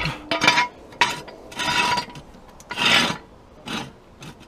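Steel axle stand and trolley jack being shifted into place under a car, making four or five short rasping scrapes of metal on block paving.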